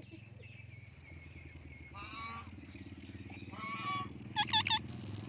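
Pet parrot calling: a harsh squawk about two seconds in and another just before four seconds, then a quick run of whistled chirps near the end. Under them runs a steady high pulsing tone.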